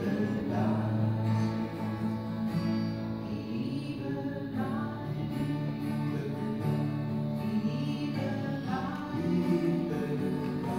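Live worship song: voices singing held, slow phrases over a strummed acoustic guitar.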